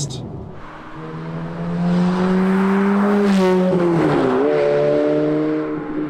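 Ferrari F430's naturally aspirated V8 engine revving up under acceleration. Its pitch climbs steadily, dips briefly about four seconds in, then holds high.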